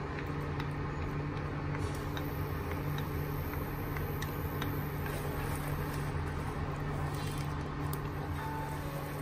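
Minced-pork and vegetable sauce simmering in a wok, with small bubbling ticks over a steady low hum, as diced bell peppers are tipped in and stirred with wooden chopsticks.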